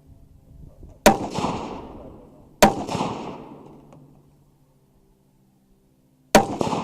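Three rifle shots firing .223 ammunition: two about a second and a half apart, then a third some four seconds later. Each has a sharp crack followed by a long echoing tail.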